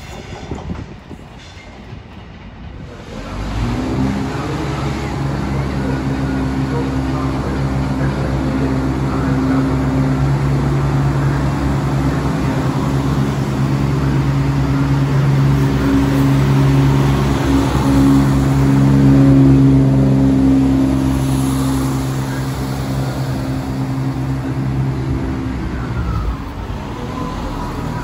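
Diesel engines of a CrossCountry Voyager diesel multiple unit running close by, a steady droning hum. It starts a few seconds in and eases near the end.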